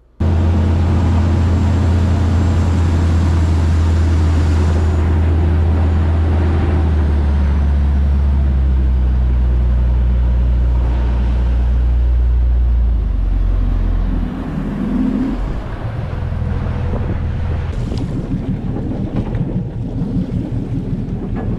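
Sport-fishing boat's engine running at speed with a steady low drone; about 13 to 14 seconds in the engine note drops and the drone gives way to wind buffeting and the rush of water against the hull.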